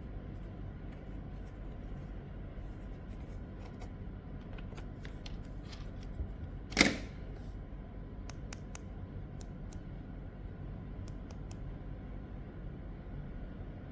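Scattered small clicks and light taps of small hard objects being handled, with one louder knock about seven seconds in, over a steady low hum.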